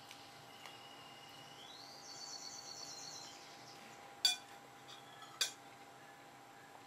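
A metal spoon and fork clinking against a ceramic plate: two sharp ringing strikes about a second apart, near the end. Under them, a steady low background and a faint high trill that rises in pitch about two seconds in.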